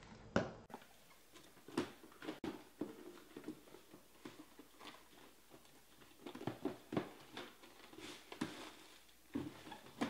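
Scattered soft clicks and taps at an irregular pace, in a small room.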